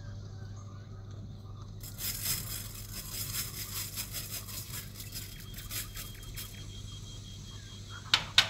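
Sesame seeds poured from a plastic container into an oiled pan, a dense patter of small grains hitting the pan for about four seconds. A single sharp knock near the end.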